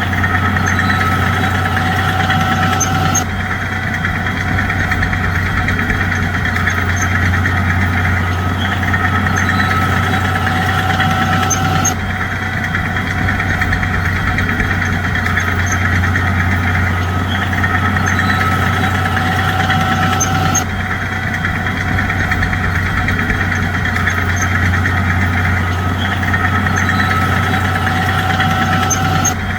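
Heavy bulldozer diesel engine running steadily with a deep hum. The sound jumps abruptly about every nine seconds, where the same stretch repeats.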